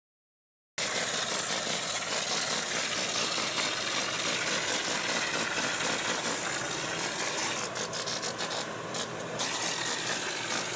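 Air compressor running with the hiss of a hopper sprayer shooting mortar, a steady mechanical noise that cuts in abruptly under a second in, after silence.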